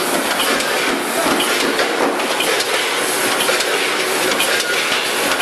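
Vertical form-fill-seal packaging machine running: a steady mechanical clatter with many small clicks.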